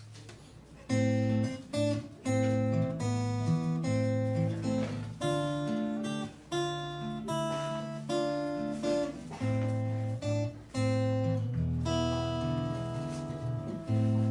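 Solo acoustic guitar playing a chordal instrumental introduction, strummed and picked chords over a bass line, starting about a second in.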